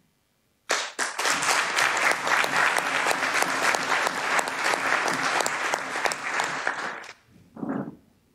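Applause from a roomful of seated people. It breaks out abruptly about a second in and stops after about six seconds.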